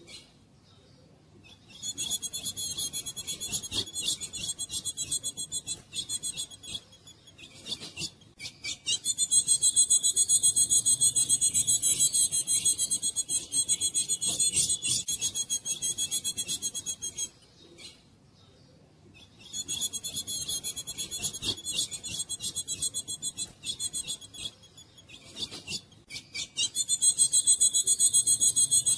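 Female ultramarine grosbeak (azulão) giving long runs of rapid, high, repeated notes, in four bouts of several seconds each broken by short pauses.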